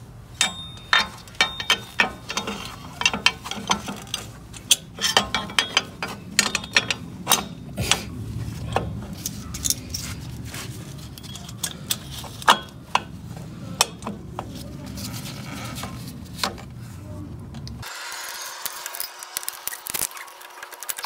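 Irregular metallic clicks and clinks as a steel drum-brake shoe is worked into place on the backing plate by hand and with a flat tool. About 18 seconds in the low background hum drops away, leaving a fainter hiss with a few more clicks.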